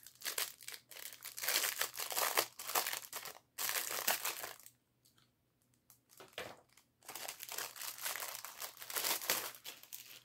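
Clear plastic bag crinkling as a card box is slid out of it. The rustling comes in two long spells, broken by a quiet pause of about two seconds near the middle.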